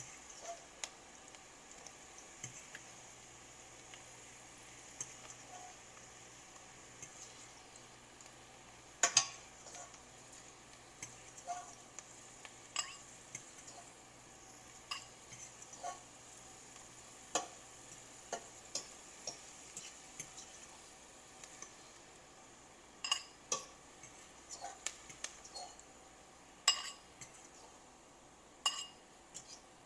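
A utensil scraping and clinking against a ceramic bowl as food is scraped out into a stainless steel pan, in irregular taps, the sharpest about nine seconds in and a cluster near the end, over a faint steady sizzle from the hot pan.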